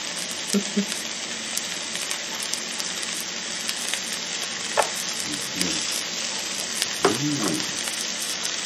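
Angus beef steak sizzling on the hot plate of an electric contact grill: a steady frying hiss with small crackles and pops.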